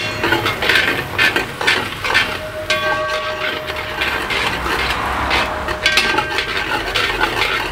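Metal spatula scraping and stirring chopped onions frying in ghee in a steel pan: repeated scraping strokes, about two a second, over a steady sizzle. The onions are softening toward translucent, not browned.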